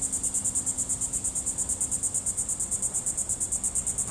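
Insect chirping in a fast, even pulse of about ten beats a second, high-pitched and steady.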